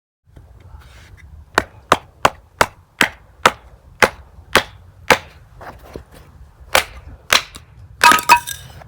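About a dozen sharp knocks, two or three a second in an uneven rhythm, ending in a brief clattering cluster.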